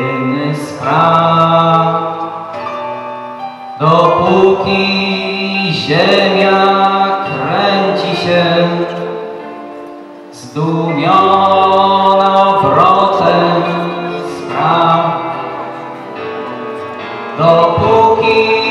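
A song with instrumental backing and a male voice singing into a microphone, in sustained phrases. The music swells louder about four seconds in, again around eleven seconds and near the end, with a quieter stretch in between.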